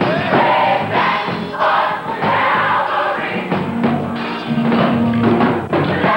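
A high school gospel choir singing in full voice, many voices together over steady low accompanying notes.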